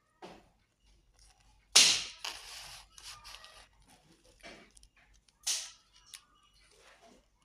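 Knife crunching through the crisp fried crust of a flour vada, in separate crackling crunches. The loudest is a sharp crunch about two seconds in, and another comes about five and a half seconds in.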